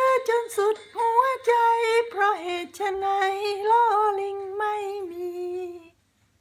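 A woman singing alone in a high voice, a winding melody with sliding ornaments and long held notes, that stops about six seconds in.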